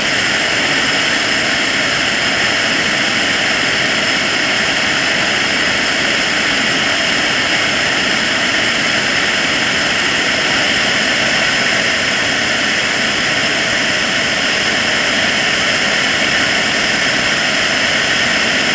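KingTech K80 model jet turbine running steadily: a loud, even rush with a thin high whine held over it.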